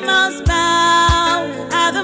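Gospel song playing: a melody over a steady drum beat.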